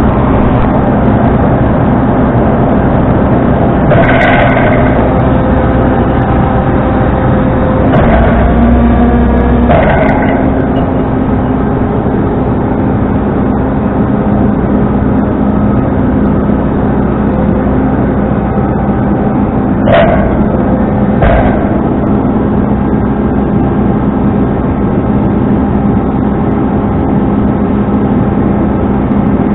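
Tow truck engine running steadily, its pitch shifting briefly about eight seconds in. A few short, sharp sounds cut through it, one about four seconds in, two around eight to ten seconds, and two close together about twenty seconds in.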